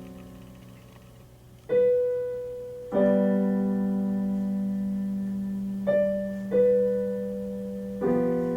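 Slow solo piano music: five notes and chords struck a second or more apart, each left to ring and fade.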